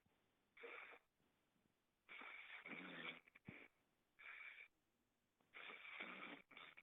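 A person snoring: about half a dozen wheezy, raspy breaths at irregular spacing, some brief and one lasting about a second.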